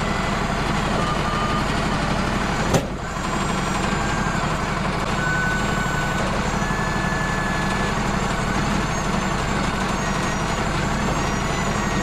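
Wood-Mizer LT35 hydraulic sawmill's engine running steadily while its hydraulics turn the log on the bed. A single sharp knock about three seconds in.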